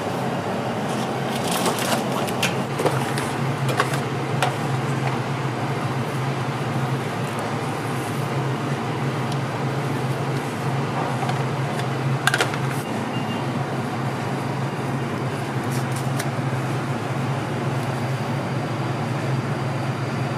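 Steady low hum of kitchen equipment such as an extractor fan, with a few light clicks and knocks from handling utensils on a steel counter, the sharpest about twelve seconds in.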